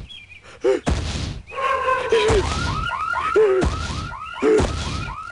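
Cartoon sound effects: several loud thuds and short vocal sounds, then from about two seconds in a fast warbling tone that chirps about four times a second, like an alarm.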